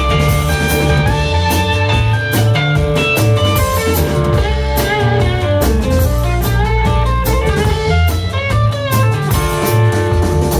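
Live band playing an instrumental passage: electric guitars with bending notes over bass and a drum kit, loud and steady.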